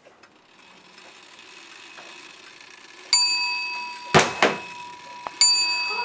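A small bell dings twice, about three seconds in and again near the end, each ring fading out slowly. Between the two rings comes a short, loud rush of noise.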